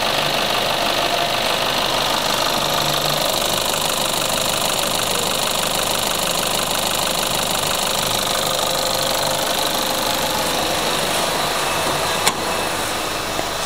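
Nissan Navara 3.0 four-cylinder turbo-diesel idling steadily with an even diesel clatter. One sharp click about twelve seconds in.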